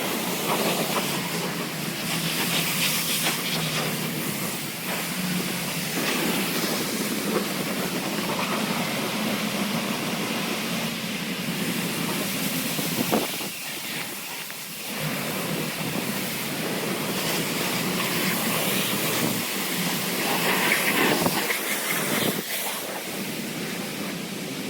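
Pressure washer rinsing a car: a steady hiss of spray on the bodywork over the washer's running hum, broken by a short pause about fourteen seconds in.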